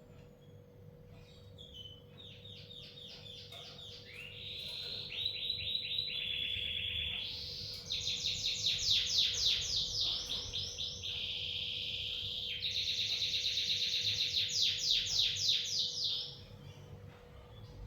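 A bird singing a long song of rapid trills, each phrase a fast run of repeated notes that jumps to a new pitch every second or two, growing louder through the middle, then stopping abruptly.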